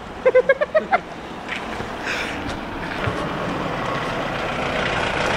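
Mahindra Scorpio SUV driving up and approaching, its engine and tyre noise growing steadily louder from about a second and a half in. Brief voices at the start.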